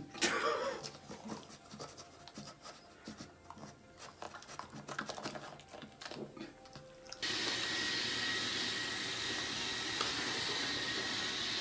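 Faint scattered clicks and rustles, then, about seven seconds in, an abrupt switch to the steady whir of a household electric appliance motor with a faint high whine.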